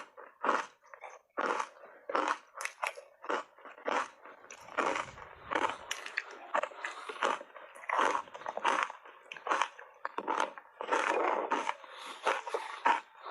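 Hard ice bars coated in matcha tea powder being bitten and chewed: a run of sharp, irregular crunches, a few a second.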